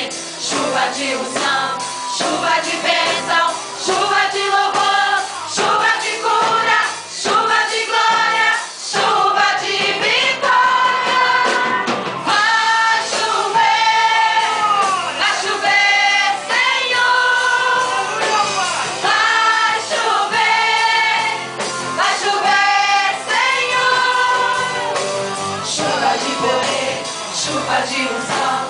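Group of voices singing a gospel worship song with musical accompaniment.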